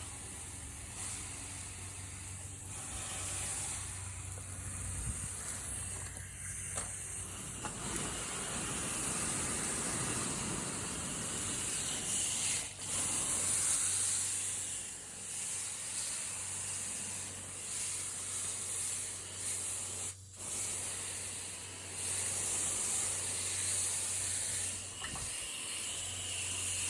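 Garden hose nozzle on a flat spray setting, its water spraying into an air conditioner condenser's coil fins to rinse out foaming coil cleaner. A steady hiss that swells and fades as the spray moves, breaking off briefly twice.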